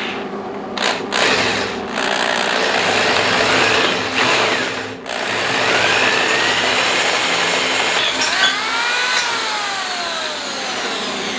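Handheld electric drill boring out pilot holes to 3/8 inch. The motor runs under load with a few brief dips, and rising and falling squealing tones come in near the end.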